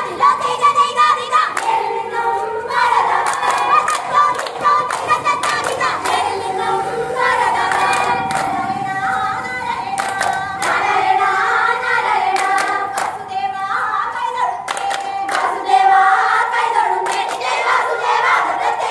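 Group singing of a folk song with sharp hand claps keeping the beat, the claps coming in quick clusters throughout.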